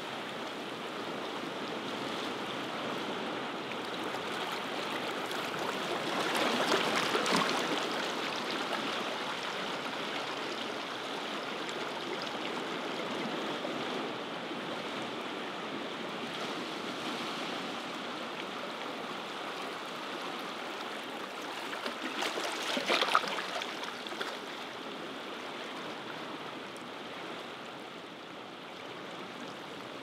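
Ocean surf washing onto a shore: a steady rush of water, with one wave breaking louder about seven seconds in and another, sharper and crackling, about twenty-three seconds in.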